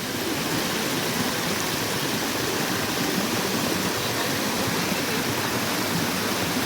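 Waterfall rushing over rocks: a steady, even roar of falling water.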